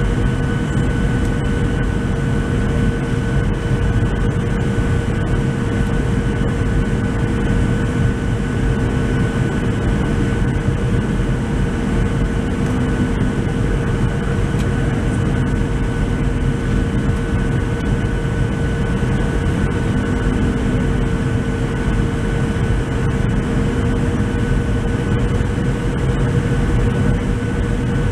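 Cabin noise in a Boeing 737-700 descending to land: a steady rush of airflow and CFM56-7B turbofan engines, with a steady whine.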